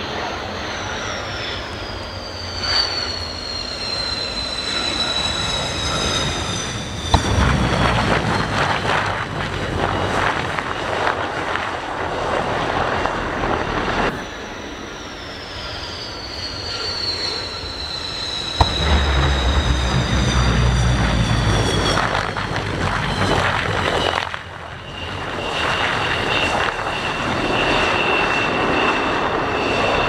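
MiG-29 twin Klimov RD-33 turbofans whining and falling in pitch as the fighter comes in to land. Then a sharp snap and a loud rushing rumble as it touches down at speed and its drag parachute deploys; the sequence comes twice. Near the end a steady high engine whine continues as the jet rolls out under the chute.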